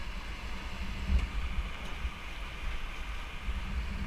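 Whitewater rapids rushing around an inflatable raft: a steady hiss of churning water, under a fluctuating low rumble of wind buffeting the microphone.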